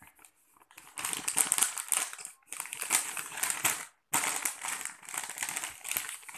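Plastic snack packets, a popcorn bag and a chips packet, crinkling as they are picked up and shuffled by hand, in three stretches with short breaks between.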